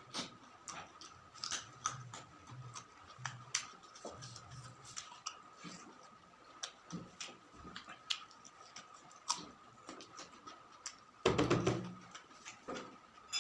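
Close-up eating sounds: chewing with frequent small wet mouth clicks and lip smacks, and a louder burst of mouth noise about eleven seconds in.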